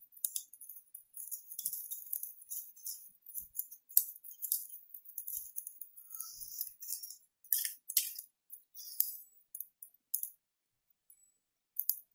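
A 500 W universal mixer motor, run as a generator with its field excited, spun by hand in quick repeated strokes. It gives a light, irregular, high-pitched rattling and scratching, with a couple of sharp clicks.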